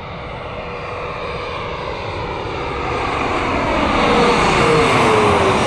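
Jet airliner passing low overhead as it comes in to land. Its engine noise grows steadily louder, and a whining tone drops in pitch near the end as the plane goes by.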